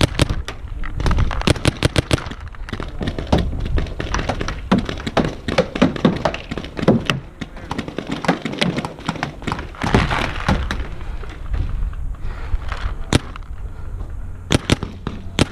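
Paintball markers firing: many sharp pops in irregular volleys, some in quick runs of several shots, with paintballs cracking against the bunkers.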